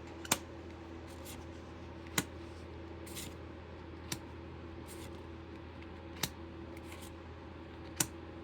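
Steady hum of fans under sharp clicks about every two seconds, as trading cards from a booster pack are flipped and laid down one at a time, with soft card rustling between the clicks.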